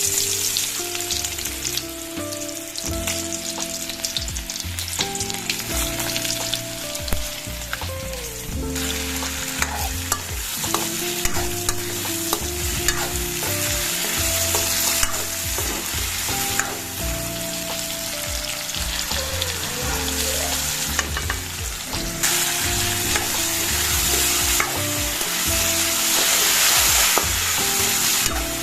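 Vegetables frying in hot oil in a pan, a steady sizzle with scraping and clatter of stirring; the sizzle grows louder about two-thirds of the way through.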